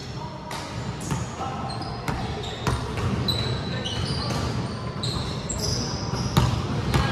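Basketball bouncing on a hardwood gym floor in irregular thuds, with short high-pitched sneaker squeaks in between.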